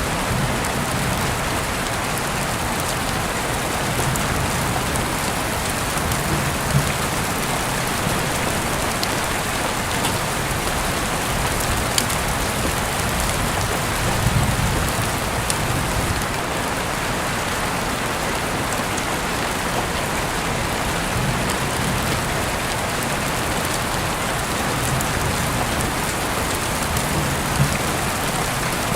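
Steady, dense rainfall, with a few sharp clicks standing out above it now and then.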